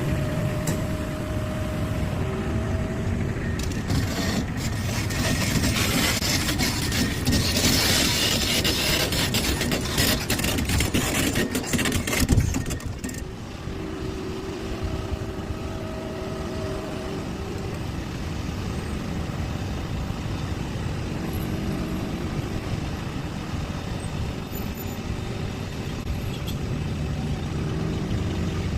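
Komatsu PC650LC hydraulic excavator working, its diesel engine running with a steady whine over it. From about four seconds in there is a louder stretch of hissing and clattering, which ends in a sharp knock at about twelve seconds before the machine settles back to a steadier run.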